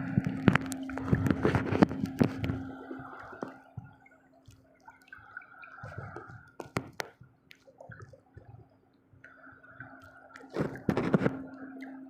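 Water splashing and dripping with scattered knocks and clicks, over a steady low hum that fades out a few seconds in and returns near the end.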